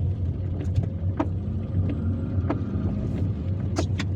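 Steady low engine and road rumble heard inside a car driving in heavy rain, with a sharp tick about every second and a quarter.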